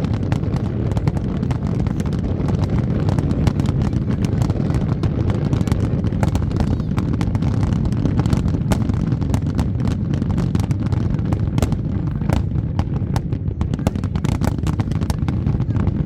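Fireworks display: a dense, continuous run of bangs and crackles over a steady low rumble of bursting shells.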